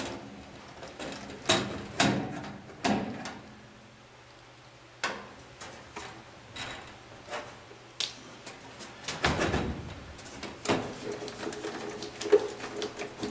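Irregular clicks, scrapes and knocks of a quarter-inch nut driver backing screws out of a sheet-metal furnace access panel, with the metal panel knocking as it is handled near the end.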